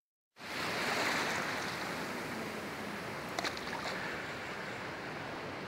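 Sea surf washing on a shore: a steady rushing noise that swells about a second in and then holds, with a few faint clicks a little past the middle.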